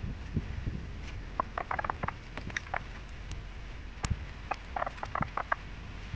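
Small clicks, taps and scratchy rattles of wires and plastic connectors being handled against a scooter's plastic front panel. They come as scattered single clicks and two clusters of quick ticks, one about a second and a half in and one near the end.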